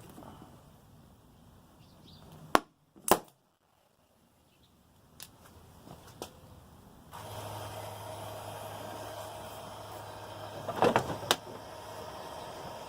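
Scattered sharp knocks and clicks: two loud ones close together early, a few faint ones, and a quick cluster near the end. A steady low hum comes in about halfway through.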